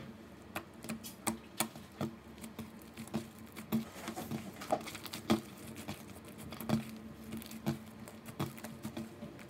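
Sticky slime with shaving cream being kneaded and pressed by hand on a tabletop, making irregular small wet clicks and pops.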